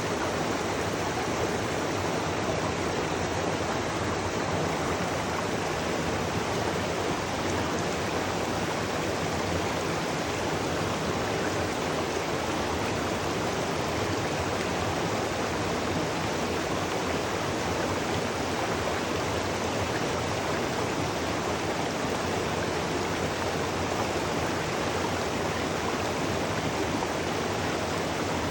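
Waterfall pouring steadily: a constant, even rush of falling water with no changes.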